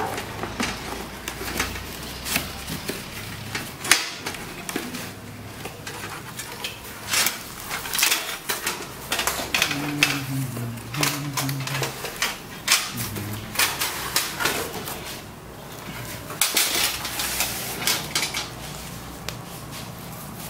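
Unpacking handling noise: a cardboard packing insert scraping and knocking as it is slid off and lifted out of the box, with plastic wrap rustling and an oven's wire grill rack, baking tray and rotisserie parts clinking. Irregular clicks and knocks, one sharper knock about four seconds in, and a busier stretch of rustling near the end.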